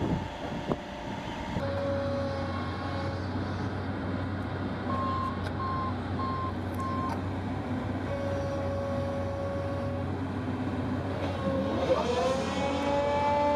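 Excavator engine running steadily while working a large rock-saw wheel attachment, with a few short beeps in the middle. Near the end a whine rises in pitch and then holds.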